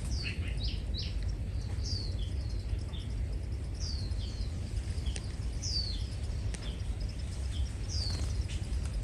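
High-pitched bird chirps: short notes that sweep downward, repeated every second or two, over a steady low rumble.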